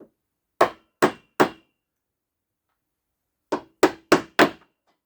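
Hammer blows knocking the worm gears out of a Honda Miimo HRM 3000 wheel motor. Three sharp taps, then a pause of about two seconds, then four more in quick succession.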